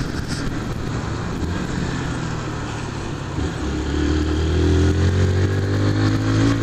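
Honda CG 150 Fan's single-cylinder four-stroke engine running under way, over a hiss of wind and wet road. About halfway through the engine pulls harder and gets louder, its pitch rising slowly as the bike accelerates.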